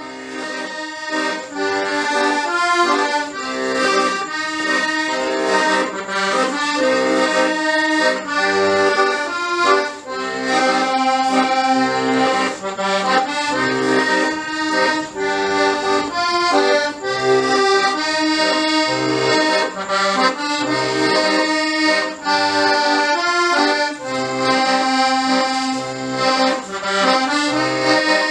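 Accordion playing a traditional-style tune: a melody over sustained chords, with low bass notes in a steady rhythm.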